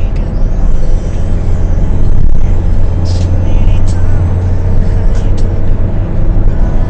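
Steady low rumble of a moving vehicle heard from inside the cabin on a phone microphone, with a few short rattles or ticks.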